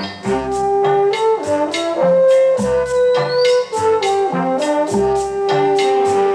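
Film score music: a brass-led melody of held notes over a steady percussive beat, with deep bass notes every couple of seconds.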